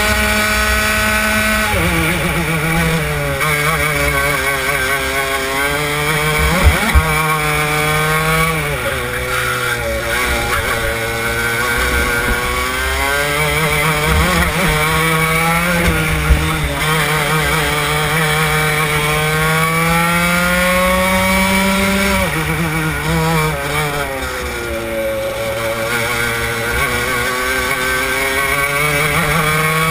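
Racing kart engine heard onboard at full throttle, its pitch climbing steadily along the straights and dropping sharply under braking for the corners, lap after lap. A few sharp knocks cut through, about a quarter of the way in and again about halfway.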